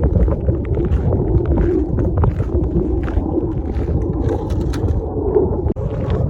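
Strong wind buffeting the camera microphone: a loud, churning low rumble, with scattered light ticks over it.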